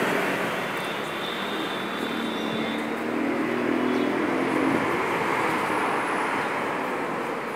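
Road traffic noise: a steady wash of passing vehicles, with an engine hum that rises from about two seconds in and fades before the five-second mark.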